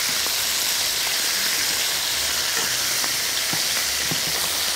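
Bone-in, skin-on chicken thighs sizzling steadily as they sear in a stainless steel frying pan, with a few light clicks of metal tongs against the pan.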